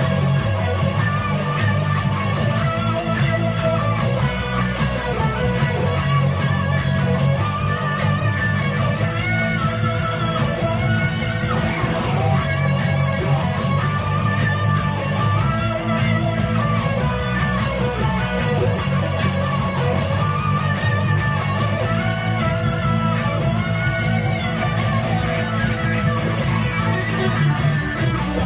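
Electric guitar playing a lead melody with bent and wavering held notes, over a steady low bass accompaniment.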